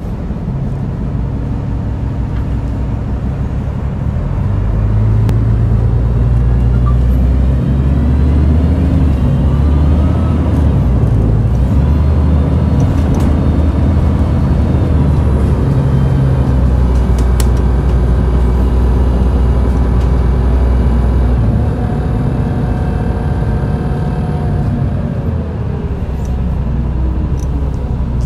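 Cummins ISMe335-30 straight-six diesel engine of a Transbus Trident Enviro 500 double-decker bus idling at a standstill, a steady low rumble. It gets louder about four seconds in and eases back down later on, with a few short clicks.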